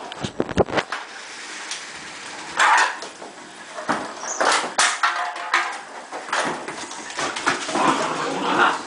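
Ten-week-old Doberman puppies playing rough, making dog noises in short scattered bursts, with a few sharp knocks in the first second.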